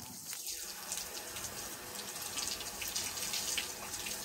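Outdoor rain shower running, a steady spray of water pattering onto a person's head and shoulders.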